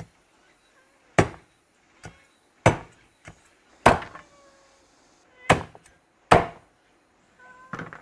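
Cleaver chopping pig trotters on a chopping board: seven heavy single blows at uneven intervals, several of them loud.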